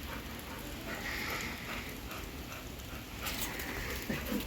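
Light rain falling steadily, with a few brief sharp ticks a little after three seconds.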